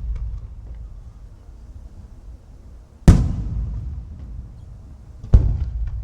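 Aerial firework shells bursting: two loud booms, about three seconds and five and a half seconds in, each followed by a rolling echo that fades over a second or more. The echo of an earlier burst is dying away at the start.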